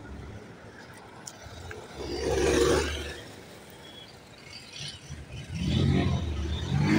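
Road traffic: two vehicles passing, one about two seconds in and another near the end, each swelling up and fading away with engine rumble and tyre hiss.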